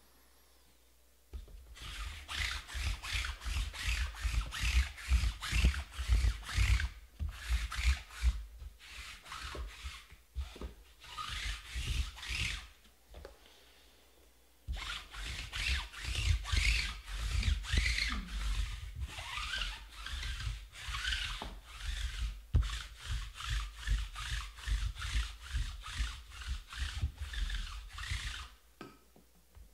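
Rapid rubbing, scraping strokes, about three a second, of a hand-held object worked over a stack of shrink-wrapped cardboard card boxes, with dull knocks against the table under them. The strokes come in two long runs broken by a short pause about halfway through.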